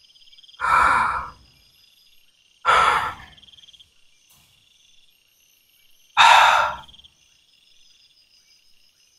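A nervous man's heavy sighing exhalations close to the microphone, three of them: about a second in, near three seconds and about six seconds in, each under a second long. Crickets trill steadily behind them.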